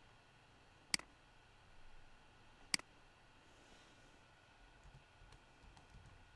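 Two sharp computer mouse button clicks, about two seconds apart, followed by a few fainter ticks near the end.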